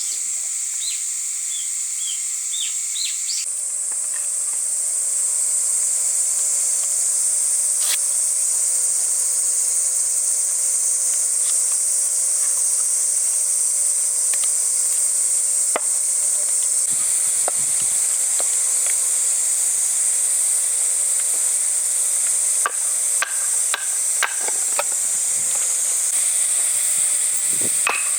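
Food frying in hot oil in a pan, a steady sizzle, with scattered light clicks of a utensil against the pan.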